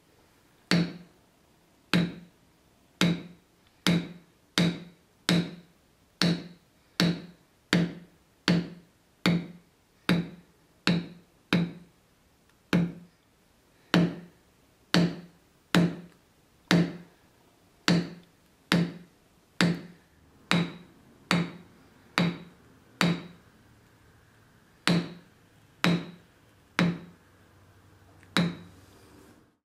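Maul striking a leather stamping tool held on heavy tooled leather: a long series of sharp taps, roughly one a second and fairly even, with a brief pause near the end.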